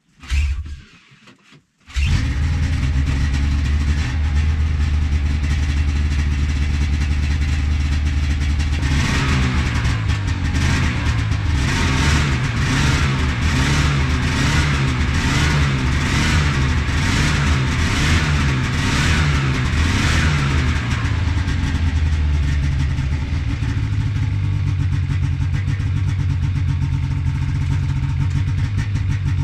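A 2005 Lynx 550 fan-cooled two-stroke snowmobile engine is started for its first test run. A short burst comes first, then it catches about two seconds in and runs. From about nine seconds in, it is revved in quick blips roughly once a second for about twelve seconds, then settles back to a steady idle.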